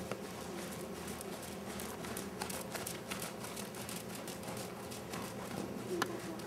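Soft, irregular hoofbeats of a pony trotting on arena sand, over a steady low hum, with one sharper click about six seconds in.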